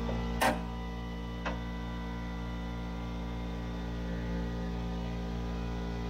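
A steady hum with a faint regular ticking under it, and two sharp clicks about half a second and a second and a half in.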